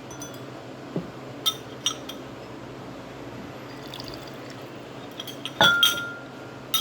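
Liquid poured into a glass, with glassware clinking a few times; near the end a glass is struck and rings briefly.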